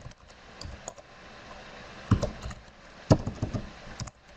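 Computer keyboard typing: scattered single keystrokes, with a quick run of them about two seconds in and another about three seconds in.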